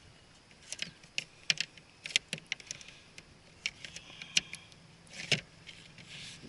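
Irregular light clicks and taps of hard plastic gear being handled on a sit-on-top fishing kayak, with one louder knock about five seconds in.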